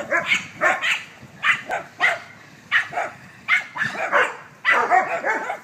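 Dogs barking repeatedly while playing, about two barks a second, with a quick run of barks near the end.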